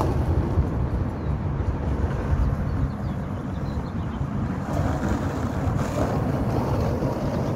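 Wind buffeting the phone's microphone: a steady low, gusting rumble.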